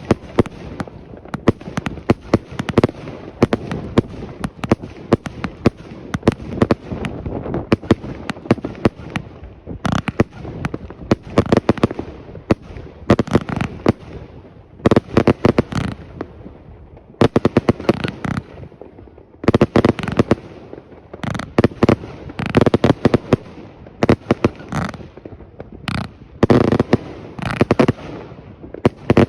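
Mustang Extreme fireworks going off in a long continuous barrage: rapid volleys of sharp bangs and crackling, coming in clusters every second or two.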